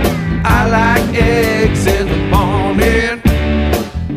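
A rock-style song with guitar, a steady beat of about two strokes a second and a singing voice.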